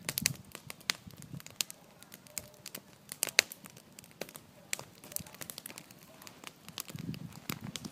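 Wood bonfire crackling, with irregular sharp pops and snaps, the loudest about three and a half seconds in.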